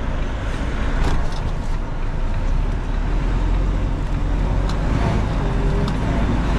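Lorry's diesel engine and road noise heard from inside the cab while driving: a steady low rumble that grows a little louder partway through.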